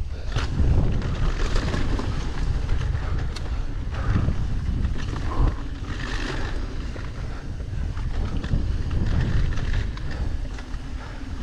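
Wind buffeting the action camera's microphone during a fast mountain-bike descent on a dry dirt trail, a continuous low rumble. Mixed in are tyres scrabbling over loose dirt and scattered clicks and rattles from the bike as it hits bumps.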